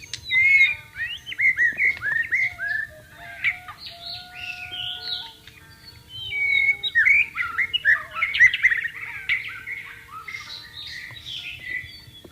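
White-rumped shama (murai batu) singing a rapid, varied run of whistled and chattering phrases in two long bursts, the second starting about six seconds in. Faint long held notes sound underneath.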